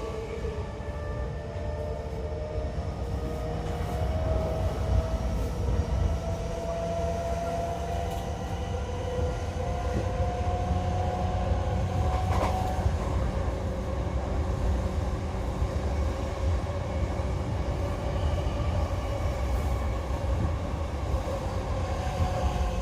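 Running sound from inside an E233 series 8000 subseries electric train, with Mitsubishi IGBT-VVVF control: the inverter and traction motors whine over a steady low rumble of wheels on rail. The whine's pitch rises slowly over the first half and then holds steady, and there is a single sharp click about twelve seconds in.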